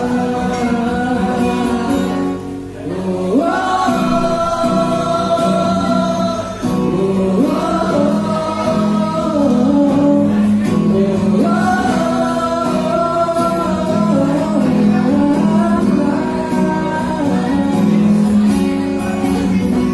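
A man singing live to his own acoustic guitar accompaniment; the guitar plays alone at first and the voice comes in about three seconds in.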